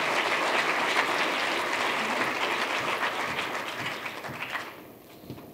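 Audience applauding, many hands clapping, tapering off and dying away near the end.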